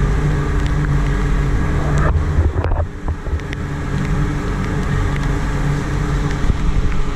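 Motorboat's outboard engine running steadily at cruising speed, with wind on the microphone. The sound dips briefly about two and a half seconds in.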